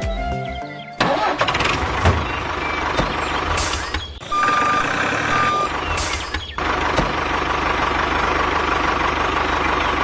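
Tractor-like engine running with a low, steady rumble, possibly a dubbed vehicle sound for the mini tractor. Near the middle come two short bursts of hiss and two short high beeps.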